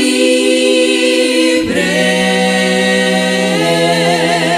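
A women's vocal quartet singing a cappella in harmony, holding long chords on the word "libre", with the chord changing about a second and a half in.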